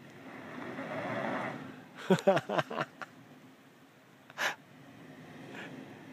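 A Toyota 4Runner's V6 engine revving as it crawls over a rutted dirt trail, swelling and then dropping away. About two seconds in, a person laughs in quick short bursts close to the microphone, and a second and a half later there is a short puff of noise.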